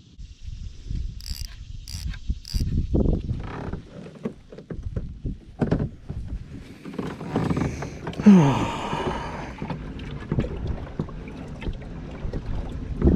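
Wind rumbling on the microphone, with scattered knocks and rubbing from gear being handled in a kayak. There are three short high chirps in the first few seconds and a brief falling squeak about eight seconds in.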